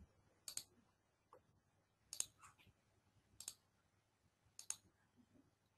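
Computer mouse clicking four times over a near-silent background, each click a quick pair of ticks from the button's press and release.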